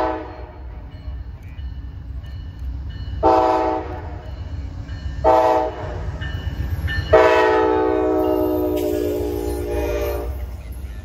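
Amtrak GE P42DC diesel locomotive's air horn sounding the grade-crossing signal: long, long, short, then a final long blast of about three seconds that drops slightly in pitch as the locomotive passes close by. A steady low rumble of the train's engine and wheels runs beneath.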